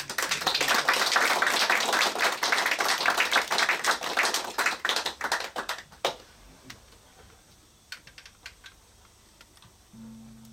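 Audience applauding after a song, loud for about six seconds, then dying away to a few scattered claps.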